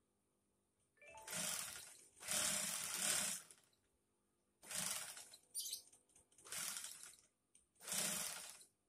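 Industrial sewing machine run in five short bursts of stitching, each about a second long, stopping between each.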